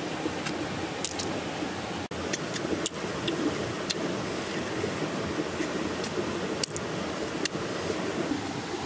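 Steady rush of a flowing river, with scattered sharp clicks of small clam shells clinking against each other and the rock.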